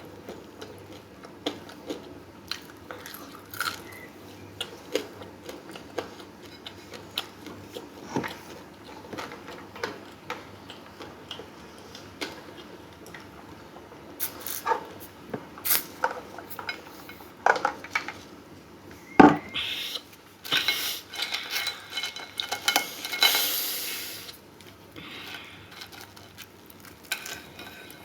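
Cutlery clinking and tapping against a plate: scattered light clicks, busier in the second half, with one sharp knock about two-thirds of the way through.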